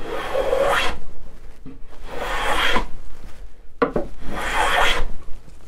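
Hand plane shaving the edge of a wooden door, three strokes about two seconds apart, each a rasping hiss of the blade cutting a shaving. The cuts are beveling the door edge down toward a marked line.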